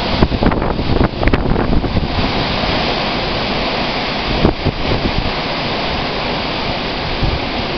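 Storm wind with heavy rain: a steady rushing hiss. Gusts buffet the microphone in the first two seconds and again about four and a half seconds in.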